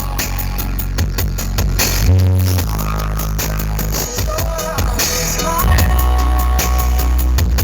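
Electronic dance remix with a fast, dense beat and heavy deep bass notes, played loud through a large outdoor speaker rig.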